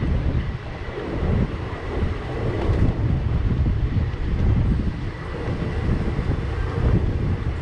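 Passenger express coaches running along the track, heard from an open coach doorway: a continuous rumble of wheels on rail.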